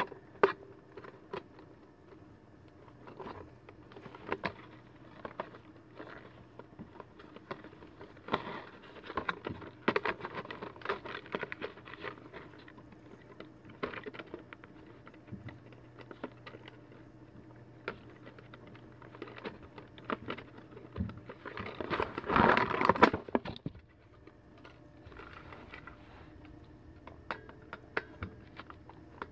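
Cardboard box and packaging being handled as an animatronic plush macaw is worked out of it: scattered clicks, taps and scrapes, with a louder stretch of rustling handling noise lasting a second or two about three-quarters of the way through. A faint steady low hum runs underneath.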